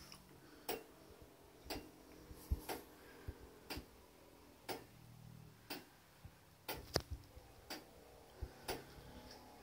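Escapement of a 1907 tower clock movement by clockmaker E. R. Syrstad ticking steadily, about one sharp tick a second.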